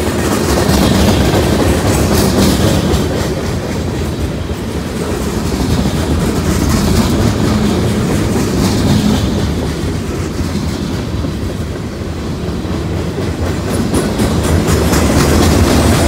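A train rolling past, its car wheels clicking over the rail joints above a steady rumble.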